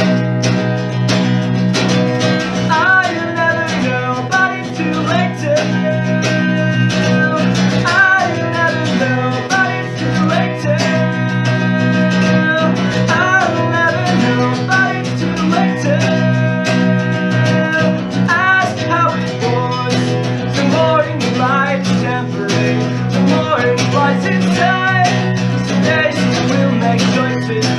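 Acoustic guitar playing a song's instrumental intro: picked notes over steady low notes, with a melodic phrase that comes back about every five seconds.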